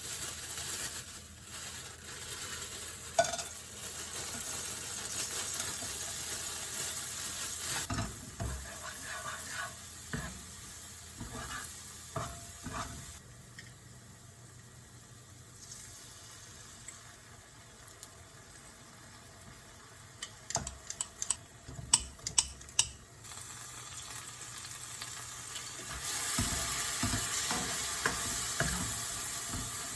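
Fried rice ingredients sizzling in a frying pan while a spatula stirs them. Sharp clicks and knocks of the utensil against the pan come in clusters about a third of the way in and again past the two-thirds mark. The sizzling drops back in the middle and returns strongly near the end.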